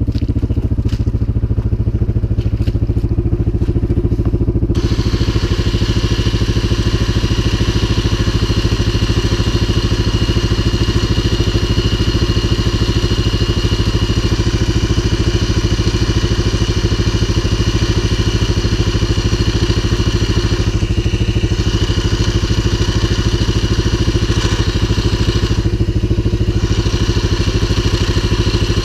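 CFMoto 500 ATV's single-cylinder engine running steadily under load, a higher whine joining in about five seconds in and briefly easing off twice near the end.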